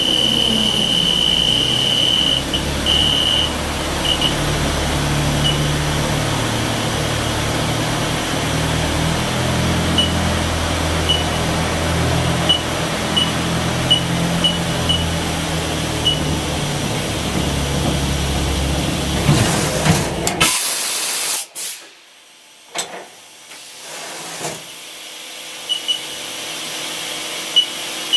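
Haas EC-400 horizontal machining center running inside its enclosure: a steady hiss over a low, shifting drone. About 20 seconds in, a short loud burst comes, then the drone cuts off suddenly, leaving a quieter stretch with scattered clicks and light ticks.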